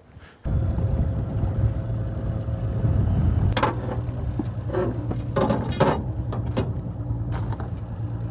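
Boat motor running steadily with a low, even hum that starts abruptly about half a second in, with a few brief louder noises over it around the middle.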